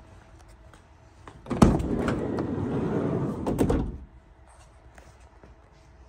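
Sliding side door of a 2015 VW Transporter camper van being opened: a sharp latch click, then the door rolling back along its runner for about two seconds, with a couple of knocks as it reaches fully open.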